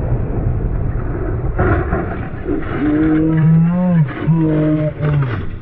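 Low rumble of a moving motorcycle and wind on the rider's camera. Near the end a man yells out two long shouts of about a second each.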